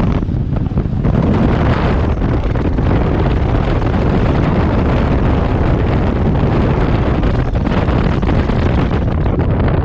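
Boat running under power with heavy wind buffeting the microphone, over the 1999 Evinrude FICHT 150 two-stroke outboard and water rushing past the hull.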